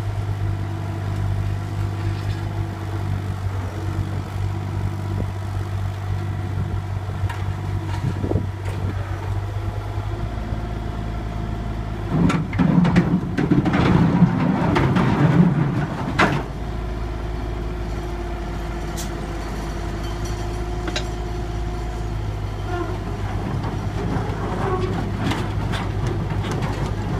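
A Kobelco mini excavator's diesel engine runs steadily, with its hydraulics working as it levers itself onto a truck bed. About halfway through, a few seconds of louder rumbling and clanking come as the engine takes load and the steel tracks grind onto the bed, with a few sharp knocks around it.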